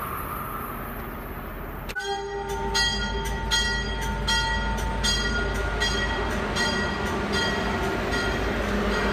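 Commuter train bell ringing steadily, about one strike every three-quarters of a second and slowly fading, over a steady tone and the low rumble of the train moving past. The first two seconds hold only a faint distant rumble before the bell starts suddenly.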